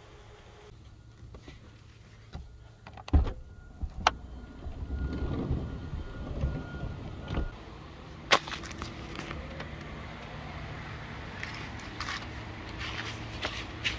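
A van door being unlatched and opened, with sharp clicks and knocks and a rumble as it moves, then a loud knock about eight seconds in. After that, a steady low hum of street traffic outside with scattered small clicks.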